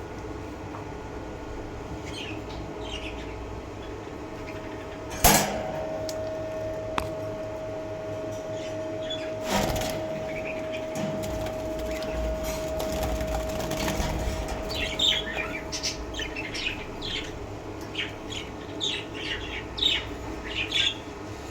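Hogoromo budgerigars chirping in short, quick calls, thickest over the last six seconds. There is a sharp knock about five seconds in, followed by a steady faint tone that lasts about ten seconds.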